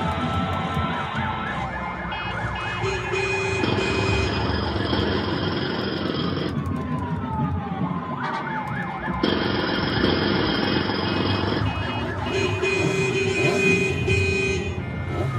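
Live electronic music played from laptops and hand-held controllers: a dense layered mix of sound clips and tones with siren-like falling pitch glides. Layers cut in and out abruptly every few seconds.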